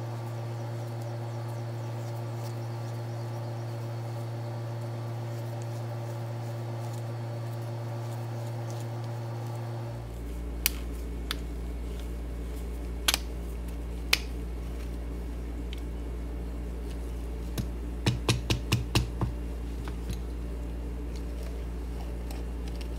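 Tubing cutter being worked around the aluminium can of an old dry electrolytic capacitor to cut it open: a few sharp clicks about halfway in and a quick run of about seven clicks a little later as the can gives way. A steady low hum runs underneath, dropping in pitch about ten seconds in.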